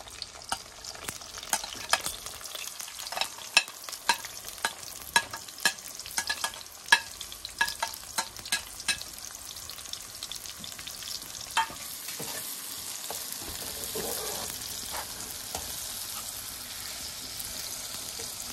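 Chopped onions frying in hot oil with cumin seeds in a karahi, stirred with a metal slotted spoon. Sharp crackles and clicks come through the first several seconds, then a steady sizzle builds from about twelve seconds in.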